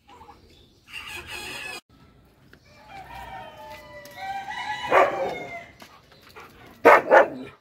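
A rooster crowing, one long call of about two seconds in the middle, after a shorter call about a second in. Two short loud sounds follow near the end.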